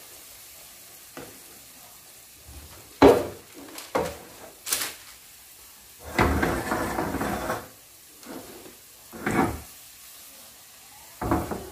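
Oil sizzling steadily around twisted glutinous-rice dough (pinilipit) deep-frying in a pan. Several short knocks and clatters sound over it, the loudest about three seconds in, with a longer noisy stretch around the middle.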